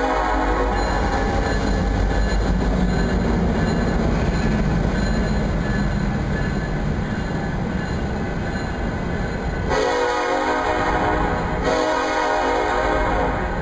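Union Pacific freight train passing: steady rumble of diesel locomotives and wheels on the rails. The air horn ends a blast just after the start, then sounds two long blasts near the end.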